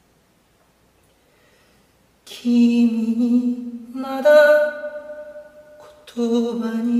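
Near silence for about two seconds, then a solo voice singing unaccompanied, holding long notes, with a short break about six seconds in.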